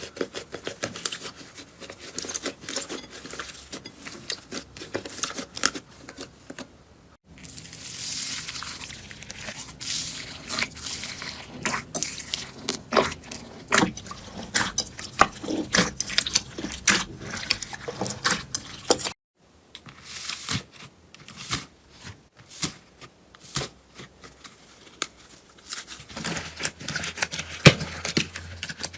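Slime being squished and stretched, a dense run of sticky crackles, pops and squishes. It breaks off into silence twice, about 7 and 19 seconds in, and starts again each time.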